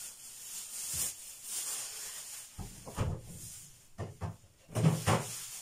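A plastic bag crinkles, then come a few knocks and thumps as the bottom freezer of a refrigerator is opened and things are moved inside it.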